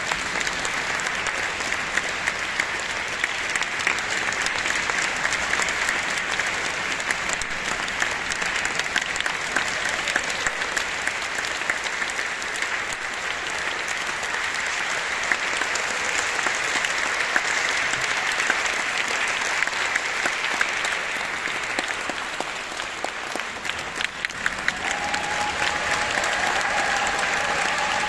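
Concert-hall audience applauding steadily, a dense patter of many hands clapping. A held tone sounds through the clapping in the last few seconds.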